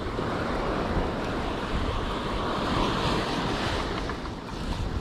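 Small waves breaking and washing up the beach, with wind on the microphone. The surf swells a little louder near the middle.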